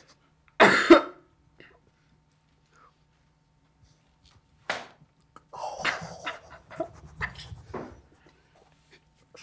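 Stifled, held-in laughter and snorting breaths, loudest in a short outburst just under a second in. One sharp smack about five seconds in, like a paddle strike, is followed by a scatter of short muffled laughs and gasps.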